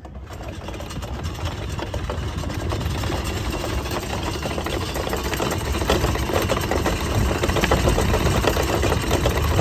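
Tour boat's engine running steadily with a low rumble, growing gradually louder.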